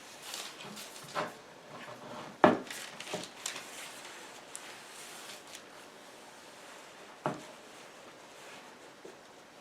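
A few wooden knocks and clunks from things being handled and set down, the loudest about two and a half seconds in and another near seven seconds, with faint rustling between.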